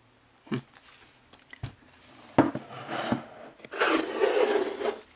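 Thick cardboard pages of a Blu-ray digibook being handled and turned: a few light taps and knocks, a louder knock about halfway, then about a second of cardboard rubbing and sliding near the end.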